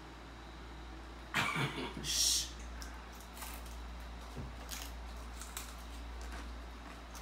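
A short vocal burst from a person at the table, dropping in pitch, followed at once by a sharp breathy hiss. Faint knocks from the table come later.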